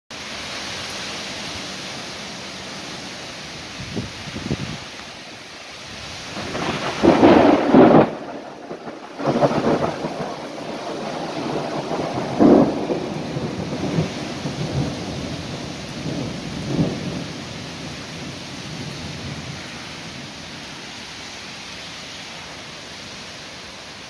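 Steady heavy rain through a thunderstorm. Thunder rolls in about six seconds in and peaks around seven to eight seconds, followed by several more rumbling peals that die away by about twenty seconds.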